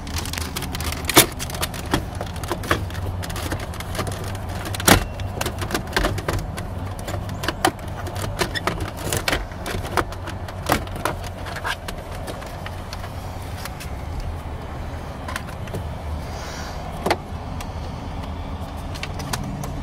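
Plastic clicks, taps and knocks as a 2012 Ford Mustang's instrument cluster is worked loose from the dash and pulled out by hand, over a steady low hum.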